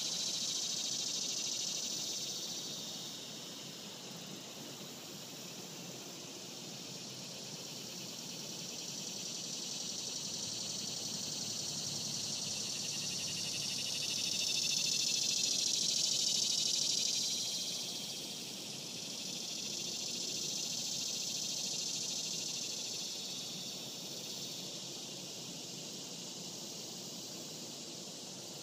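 A daytime chorus of insects: a dense, high, fast-pulsing buzz that swells and fades in slow waves, loudest a little past halfway.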